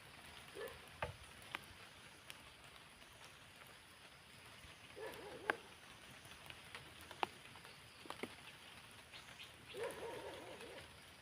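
Light rain pattering, with scattered sharp ticks and knocks.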